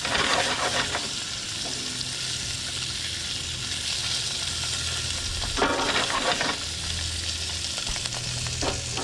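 Tailor fillets frying in chilli garlic butter in a frying pan, a steady sizzle. There are short louder spells about a second in and again a little past the middle.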